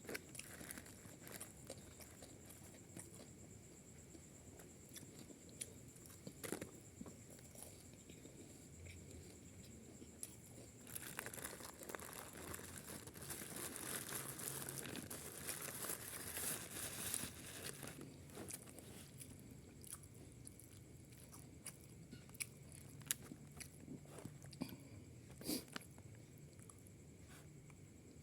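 A person chewing and crunching food with scattered mouth clicks, with a louder stretch of rustling and crunching about halfway through.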